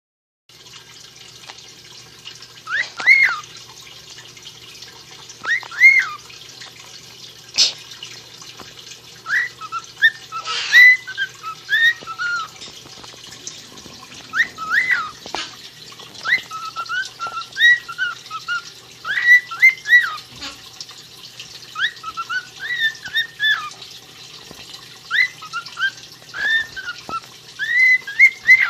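A bird calling in short whistled chirps that rise and fall in pitch, in bursts of a few notes every second or two.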